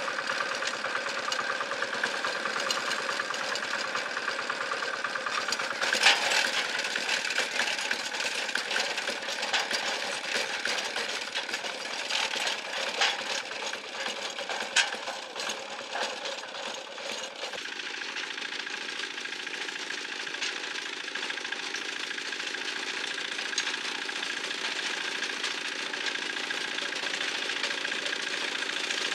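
A rebuilt 18 HP single-cylinder diesel engine from a hand tractor running steadily on its test run, with a fast, even chugging beat. A few sharper knocks stand out about six and fifteen seconds in, and the tone shifts a little just past halfway.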